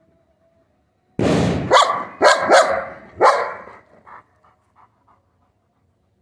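A large German Shepherd barking loudly, five or six barks in quick succession starting suddenly about a second in, then a few faint short sounds trailing off. The barking is the dog's reaction to fireworks, which it dislikes.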